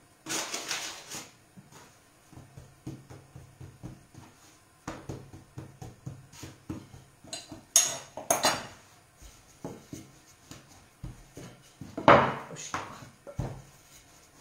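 Light taps and knocks on a wooden pastry board as dough is pressed flat by hand. There are louder clatters near the start, at about eight seconds and at about twelve seconds, as a metal dough scraper and a wooden rolling pin are handled and set down on the board.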